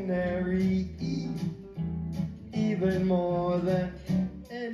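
Live band music: guitar playing chords over a steady bass line, with a man singing a melody into a microphone.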